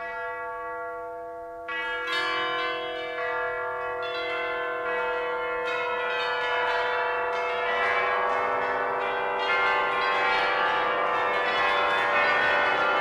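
Church bells pealing: a single bell strike rings on alone, then from about two seconds in many bells are struck in quick succession and their ringing builds up.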